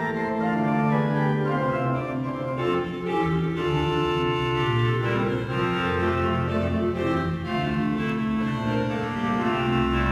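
Pipe organ music: full sustained chords changing every second or two over deep held bass notes.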